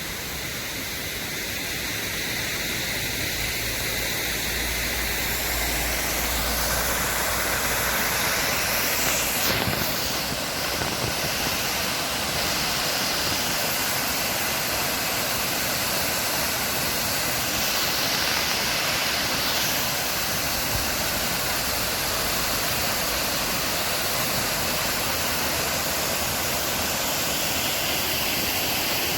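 Upper Düden Waterfall: a steady, loud rush of falling water, swelling over the first few seconds.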